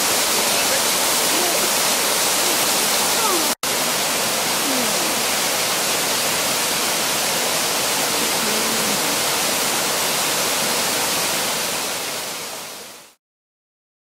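Small waterfall splashing down over rocks: a steady rush of falling water. It breaks off for an instant about three and a half seconds in, then fades away to silence near the end.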